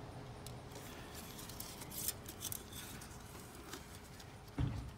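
Metal oil dipstick being handled in its tube during an oil-level check: a few light clicks and ticks, then one dull thump near the end.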